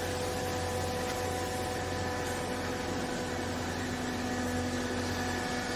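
Hydraulic clothes baler's electric motor and pump running with a steady hum, a second, lower tone joining about halfway through.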